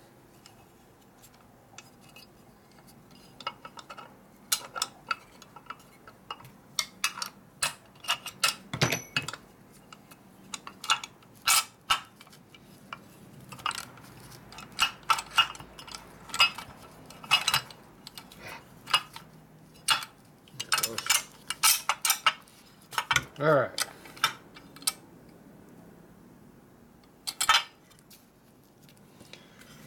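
Steel transmission parts clinking and clicking as a shift fork and shift rail are worked by hand into the sheet-metal shift cover of a Borg Warner T5 five-speed gearbox. The clicks come irregularly, in clusters, thickest in the second half.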